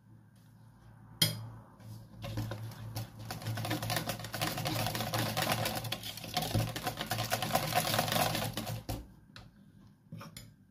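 Wire whisk beating egg batter in a plastic bowl: a fast, continuous clatter of the wires against the bowl, starting about two seconds in and stopping near the end. A single sharp tap comes just before the whisking begins.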